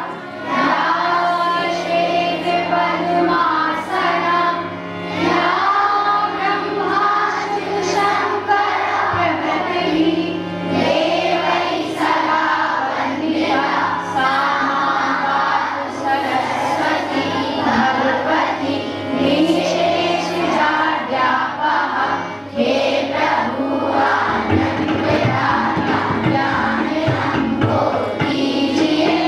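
A group of children singing together as a choir, with musical accompaniment of sustained low notes that change every couple of seconds.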